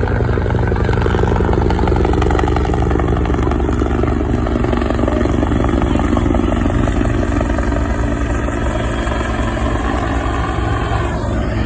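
Low-flying aircraft drone overhead: a steady, loud engine and propeller hum whose pitch drops near the end as it passes.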